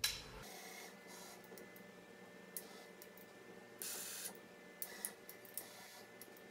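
Faint whirring of a robotic arm's joint motors in short bursts, the longest about four seconds in, over a steady electrical hum.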